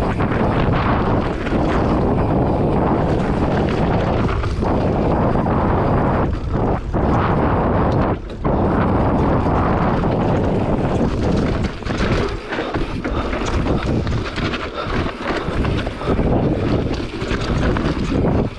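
Enduro motorcycle being ridden off-road, its engine buried in heavy wind noise on the microphone. The sound drops briefly about eight seconds in and dips several times in the second half.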